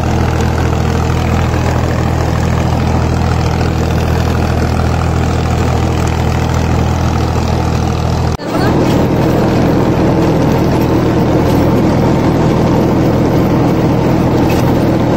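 Farmtrac 65 EPI tractor's diesel engine running steadily under load while it drives an 8-foot rotavator through the PTO. By the operator's ear the engine holds its speed well, dropping only about 100–200 rpm. About eight seconds in the sound cuts briefly, then carries on with more of the rotavator's churning over the engine.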